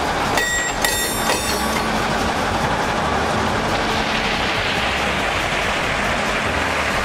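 A train running past on the rails, a loud steady rumble and rush of noise, with brief high-pitched squeals in the first second or so.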